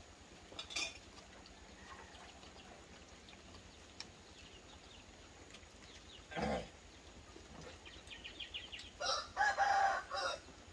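A rooster crowing once near the end, a call in several parts, preceded about six seconds in by a shorter sound that falls steeply in pitch.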